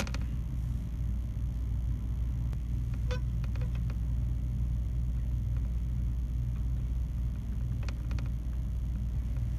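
Steady low background rumble, with a few faint light clicks about three seconds in and again near the end as small phone parts are handled and pressed into place.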